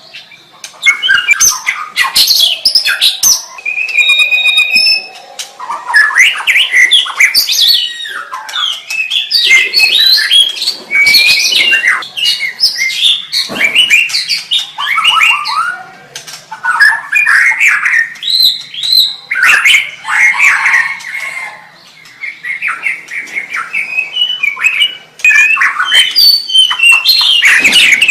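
White-rumped shama singing: a long run of fast, varied phrases of sweeping whistles and sharp chattering notes, broken by short pauses, with one held, steady whistle about four seconds in.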